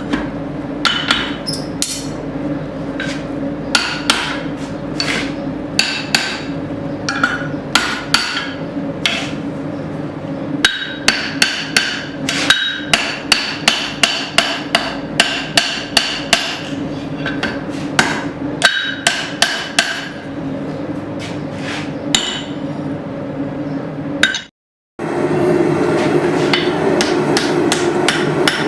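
Hand hammer striking hot steel on an anvil, irregular blows with quick runs of about three or four a second, each blow ringing briefly. A steady hum runs underneath, and the sound cuts out for a moment near the end.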